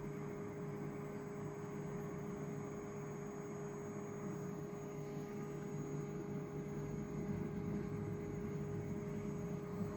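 Metal planer running steadily, a constant hum with a steady mid-pitched whine, as its table traverses slowly.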